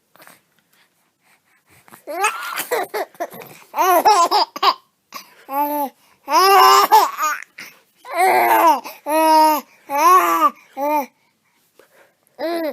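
A person laughing in a high-pitched voice, a string of separate laughing bursts after a short silence, with one more short burst near the end.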